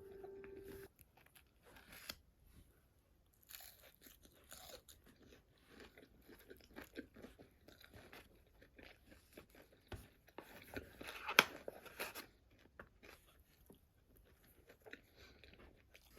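Close-up crunching and chewing of crisp food, in irregular bursts of bites, with one sharp tap about eleven seconds in.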